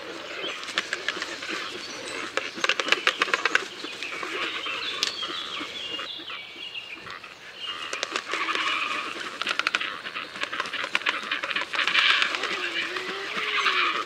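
Birds calling over one another in a dense, busy chatter of rapid clicks and chirps, with a few higher chirping phrases. It is loudest about three seconds in and again near the end.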